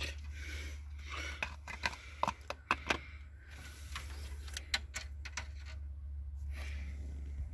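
Motor oil pouring from a large plastic jug into the engine's oil filler, with irregular glugs and clicks as air gulps back into the jug, bunched in the first half and again about five seconds in, over a steady low hum.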